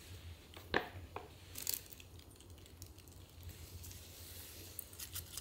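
Dry ingredients poured and worked into a stainless steel mixing bowl: a few light knocks against the bowl about a second in, then soft rustling and crackling of powder and crumbs.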